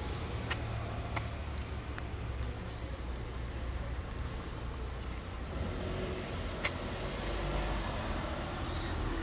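Steady low rumble of street traffic, with a few faint sharp clicks.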